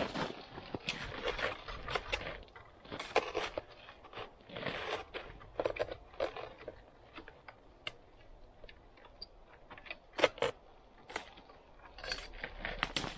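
Close handling noise of someone setting up a tripod while kneeling in snow: snow crunching and clothing rustling, with small clicks and knocks from the tripod legs and head. The scraps come irregularly, with one sharp click about ten seconds in.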